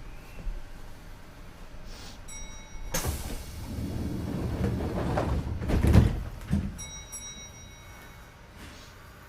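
Kintetsu 2430-series train's passenger doors sliding shut: a rush of noise from about three seconds in ends in a heavy thud near six seconds, with a second thud just after. A short high beeping tone sounds just before the doors move and again just after they shut.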